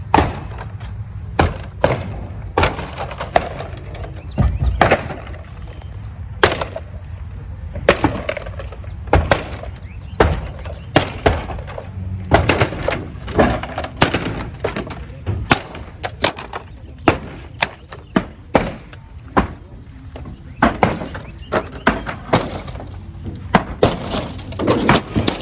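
Interior demolition of an old timber house: irregular heavy blows, like sledgehammer strikes, with wood cracking and splintering, about one or two loud impacts a second over a steady low rumble.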